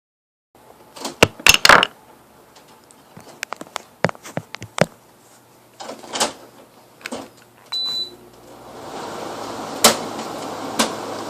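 Several clicks and knocks of handling, then a short high beep, after which an air conditioner's fan starts up about nine seconds in with a steady rush of air, broken by two more sharp clicks.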